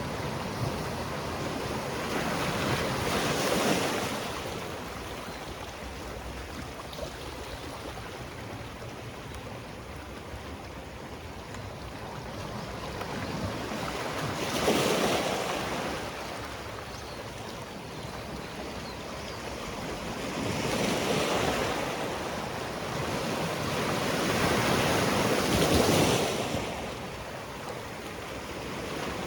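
Sea waves breaking on the shore: a continuous surf wash that swells into four louder surges, the loudest near the middle and near the end.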